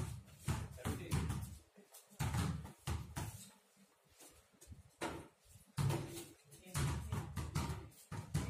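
Basketballs bouncing on a concrete court, a string of irregular thuds with a quieter pause near the middle.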